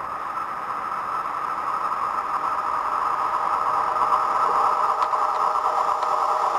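An electric locomotive hauling a passenger train approaches and passes close by. The steady running noise of the train on the rails grows louder as it nears.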